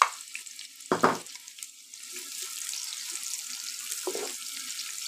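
Sliced onions frying in hot ghee in a wok, sizzling with a steady hiss that settles in from about two seconds in, while a wooden spatula stirs and scrapes them. A couple of sharp knocks come in the first second or so as the onions go into the pan.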